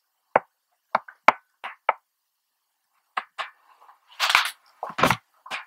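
Short, irregularly spaced taps and knocks echoing in a rock cave, with a brief scuffing noise about four seconds in.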